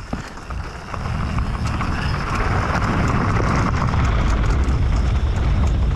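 Wind rumbling on a helmet camera's microphone and tyres rolling over the trail as a Specialized Demo downhill mountain bike descends, with many small rattles and clicks from the bike. The rush grows louder about a second in and then holds steady.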